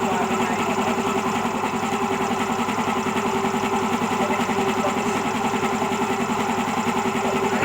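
Piston air compressor with a newly rewound 1.5 hp electric motor running steadily on test, its pump beating in a fast, even rhythm over the motor's hum.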